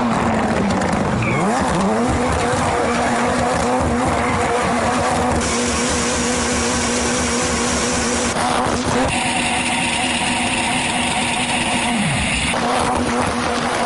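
Rallycross Ford Fiesta's turbocharged engine held at high revs while drifting, with tyres squealing and skidding. The revs drop sharply and climb back twice, about one and a half seconds in and near the end.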